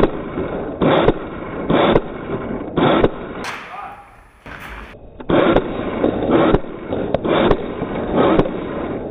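Airsoft gun firing single shots about once a second, each a sharp pop with a short tail, with a break of about two seconds in the middle.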